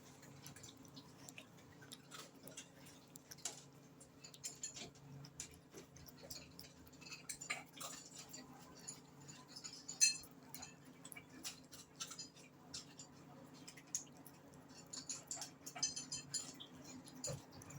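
Domestic cat chewing watermelon: an irregular run of small wet clicks and smacks, with one sharper click about ten seconds in, over a steady low hum.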